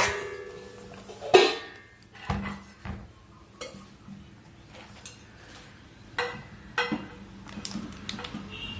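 Bait dough being mixed by hand in a mixing bowl: irregular knocks and clinks against the bowl, a few ringing briefly, the loudest about a second and a half in.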